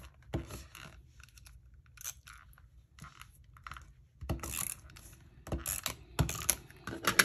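Die-cut cardstock pieces handled and set down on a wooden tabletop: light rustles, scrapes and taps. They are sparse at first and become busier and louder about halfway through.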